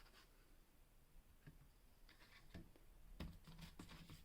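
Near silence with a few faint knocks and rustles, typical of cardboard firework tubes being handled, set down and picked up.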